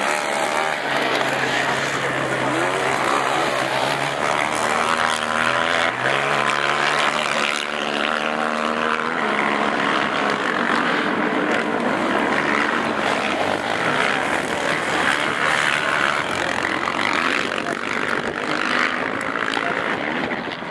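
Racing quad (ATV) engines revving hard as the quads lap the motocross track, a continuous engine noise. Between about four and nine seconds in, one engine's pitch climbs steadily as it accelerates.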